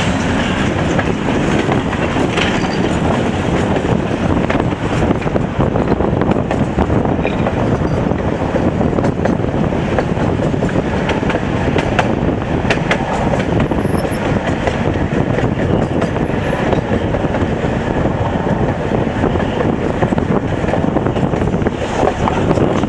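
Tatra T3 tram running along its track, heard from inside the car: a steady rumble of wheels and running gear with occasional sharp clicks.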